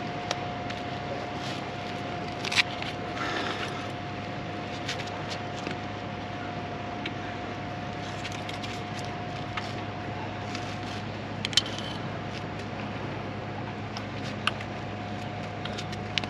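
A steady machine hum with one constant tone, broken by a few sharp clicks and scrapes of tackle and a fish being handled on rocks.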